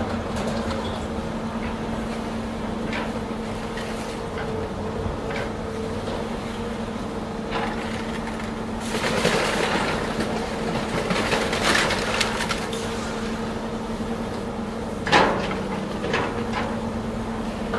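Diesel engine of a CAT material-handling excavator running steadily while its grapple crushes a Mercedes-Benz SLS AMG, metal and glass crunching in bursts about nine and twelve seconds in, with a single sharp bang about fifteen seconds in.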